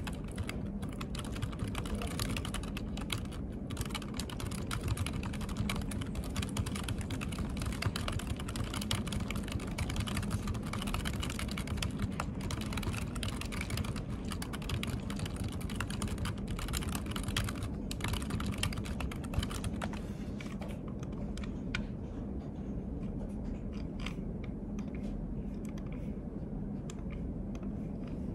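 Typing on a computer keyboard: a dense, fast run of key clicks that thins out to sparser taps over the last several seconds, over a steady low hum.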